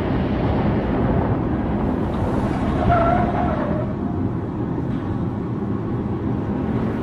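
Steady road and engine noise of a car driving at speed, an even rumble throughout. About three seconds in, a brief pitched tone sounds over it.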